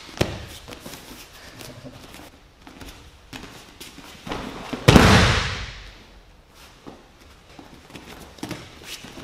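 Bare feet scuffing and cotton gis rustling on a grappling mat as two people grip up, then about five seconds in one loud thud as bodies hit the mat in a yoko tomoe nage sacrifice throw, the noise dying away over the following second.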